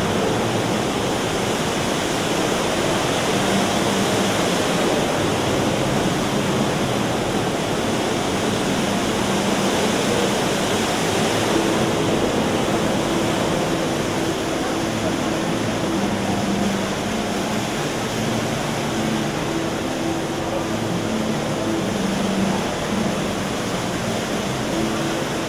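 Rain Oculus water installation: a steady rush of water swirling in its acrylic bowl and pouring through the central opening as a waterfall into the pool below.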